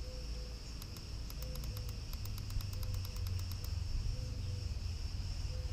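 Cicadas chirring steadily in one high, continuous drone over a low background rumble.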